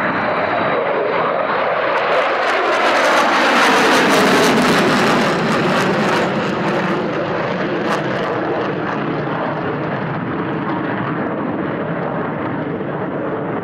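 Jet noise from four F-35A Lightning II fighters, each with a single Pratt & Whitney F135 turbofan, flying past in formation. It swells to its loudest about four seconds in with a crackling rasp and drops in pitch as they pass, then settles into a steady rumble that slowly fades as they fly away.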